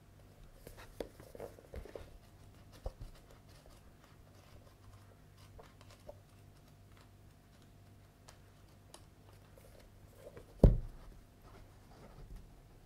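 Paper pages of a paperback manga volume being turned and riffled by hand, with soft rustles and small ticks. There is one much louder thump near the end.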